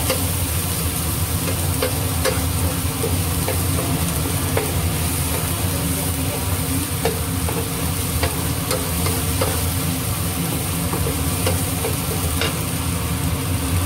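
Diced onion, garlic and yellow bell pepper sautéing in a nonstick frying pan, with a wooden spatula stirring through them and tapping the pan in scattered clicks. Under it runs a steady low hum from the kitchen exhaust fan, which the cook calls noisy.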